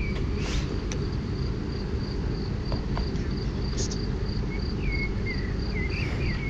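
Steady low rumble, with an insect, such as a cricket or bush cricket, chirping in an even high pulse about three times a second, and a few short bird chirps near the end.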